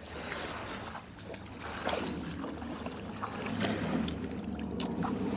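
A motorboat idling: a steady low engine hum under the sound of water and wind.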